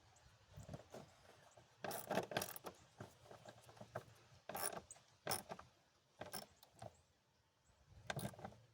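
Scattered clicks, knocks and scrapes of a plastic air intake tube being worked onto the throttle body and air box, in short irregular bursts with quiet gaps between them.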